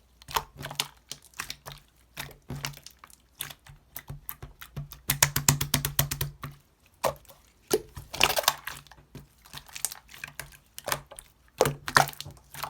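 Clear slime being squished and pressed by hand, giving irregular sticky clicks and pops, with a dense run of rapid clicks about five to six and a half seconds in.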